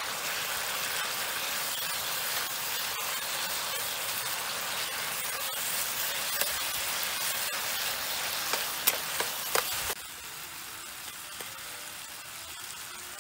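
Beef, green banana and leafy greens sizzling in a frying pan as they are stirred with a metal spatula, which clicks against the pan a few times near the middle. About ten seconds in, the sizzle suddenly becomes much quieter.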